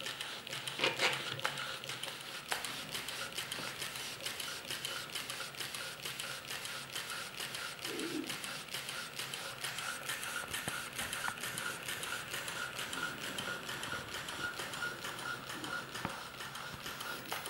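Astromedia cardboard kit steam engine running, its piston and linkage ticking in a steady rhythm of about three to four clicks a second. A brief louder sound comes about a second in.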